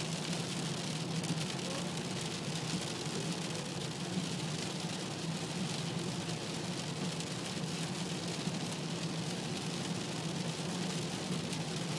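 Steady cabin noise of a car driving at about 40 mph in heavy rain: a constant low engine and tyre hum under a hiss of rain and spray on the wet road.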